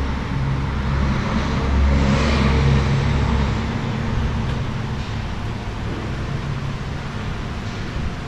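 Diesel truck engine idling, a steady low rumble that weakens after about four seconds. A broader rushing noise swells and fades around two to three seconds in.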